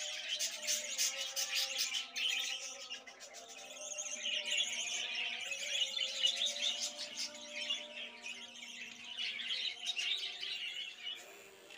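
A flock of caged budgerigars chattering and chirping continuously, many birds calling over one another in a dense, busy twitter.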